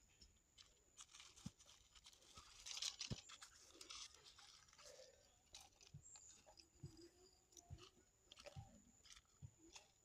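Faint crisp rustling and scattered small clicks of dried red chilies and chopped onion being handled and dropped onto a stone grinding slab, with a faint steady high tone behind.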